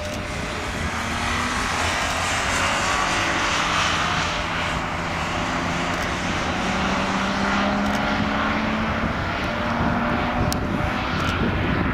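Twin jet engines of a Boeing 777-200ER airliner at takeoff power as it climbs out. The steady jet noise swells over the first two seconds and holds, with slowly gliding low tones running through it.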